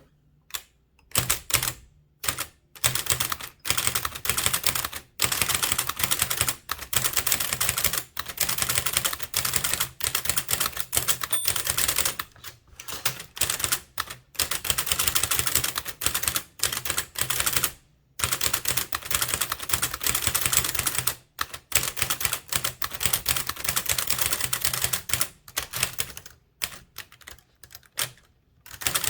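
Blickensderfer typewriter typed at speed with its type-cylinder mechanism: fast runs of sharp mechanical key clacks, about four to six a second, broken by short pauses every few seconds.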